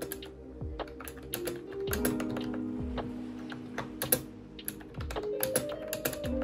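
Typing on a wireless keyboard with round, typewriter-style keycaps: quick, irregular key clicks, over background music.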